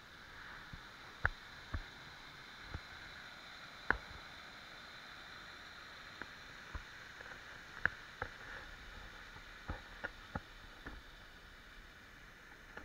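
Water pouring over a small river weir, a steady rush, with a dozen or so sharp clicks and knocks scattered through it, the loudest about a second in and about four seconds in.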